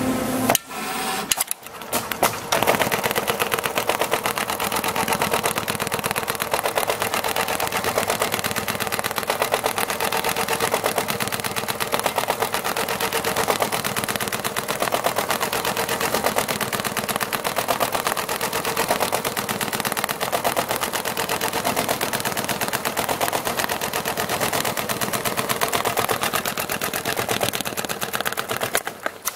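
Richpeace CNC sewing machine stitching through leather: a rapid, even needle clatter over a steady hum, with short breaks in the first two seconds before it settles into continuous sewing.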